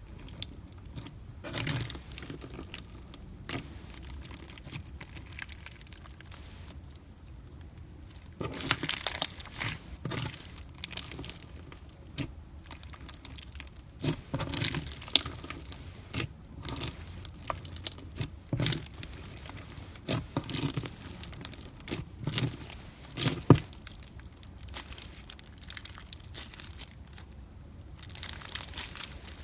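Fishbowl slime, clear slime full of crunchy plastic beads, being squeezed, pressed and stretched by hand, giving irregular crackles, pops and crunches. The crackling is sparse at first and grows denser and louder in the middle.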